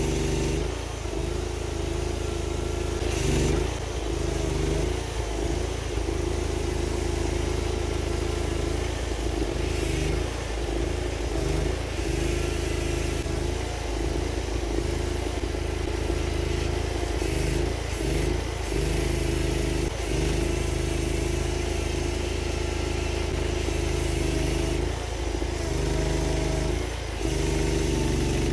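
Homemade mini excavator's engine running steadily while the arm and bucket dig into the soil. The engine note sags briefly every few seconds as it takes load.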